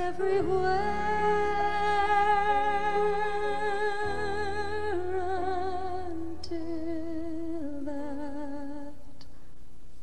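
Female singer holding long wordless notes into a microphone over soft sustained accompaniment. The later notes have a wide vibrato, and the voice stops about nine seconds in.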